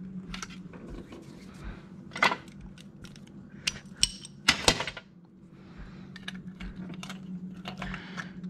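Scattered metal clicks and clinks of hand tools, a socket and ratchet, being handled while a coolant temperature sensor is threaded into the engine, over a low steady hum. The sharpest clinks come about two and four and a half seconds in.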